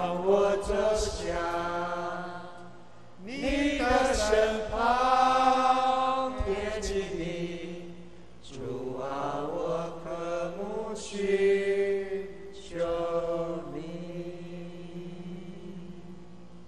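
A voice singing a slow worship song in long, held phrases a few seconds each, with short breaks between them; the singing fades out near the end.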